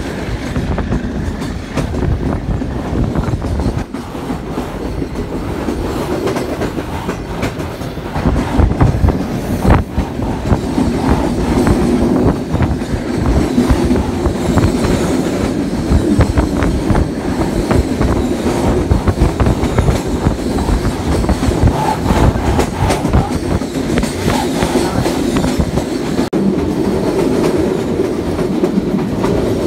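Passenger train coach rolling along the track, heard at an open coach door: a steady rumble with the wheels clattering over rail joints, getting louder about eight seconds in.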